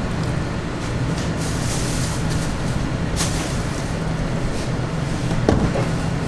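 Steady low machine hum, with a few light clicks and a sharper knock about five and a half seconds in.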